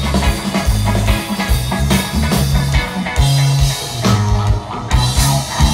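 Live reggae band playing: a heavy bass line in long held notes under drum kit and guitar.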